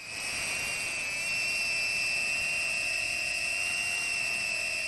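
FPV drone's brushless motors and propellers whining steadily at a high pitch, the whine edging up a little and dropping back about four seconds in.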